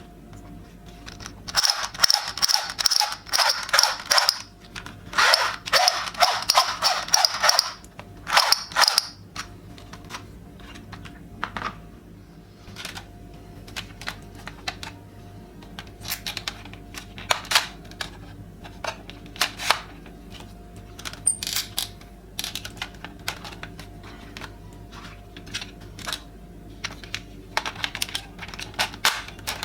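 Toy gun firing its rapid-fire sound in three bursts, the first two a few seconds long and the third short, followed by scattered single clicks from handling the toy.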